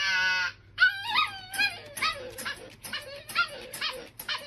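A dog whining. One long, slightly falling whine ends about half a second in, followed by a quick run of short whimpering yips.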